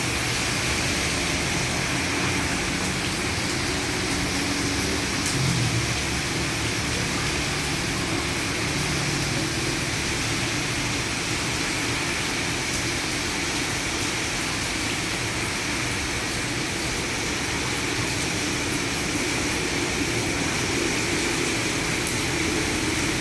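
Heavy rain falling steadily in a downpour, water pouring off a roof eave, with a faint low hum underneath.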